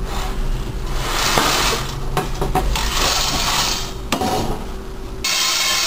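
Freshly roasted coffee beans rattling and scraping against metal as they are handled in a perforated stainless steel colander, a clatter of many small clicks. A little past five seconds in it gives way suddenly to a steady hiss.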